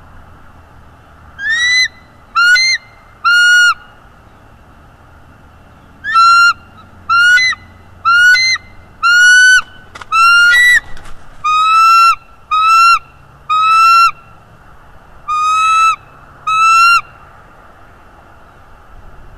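Bald eagle calling: a series of loud, high whistled notes about a second apart, three, then a short pause, then ten more, each note ending in a downward drop in pitch.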